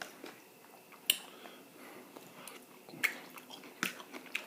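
Close-up chewing of a mouthful of chitterlings, with wet mouth smacks and a few sharp clicks, the loudest about a second in and twice more near three and four seconds.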